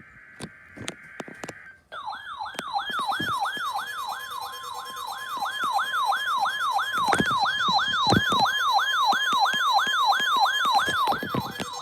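Weather radio receiver set off by the NOAA Weather Radio weekly test. It opens with a short burst of warbling digital header data. Then the receiver's alarm starts: a loud siren whoop rising over and over, about three times a second, with the steady attention tone beneath it, which runs on alone briefly after the siren cuts off near the end.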